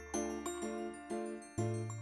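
Background music: pitched chords struck about twice a second over a held bass note that changes about halfway through.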